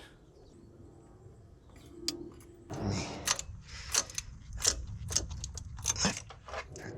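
Ratchet wrench clicking in short, irregular strokes as nuts are run down onto a starter motor's copper terminal studs. It is faint at first; the clicks begin nearly three seconds in and come several times a second.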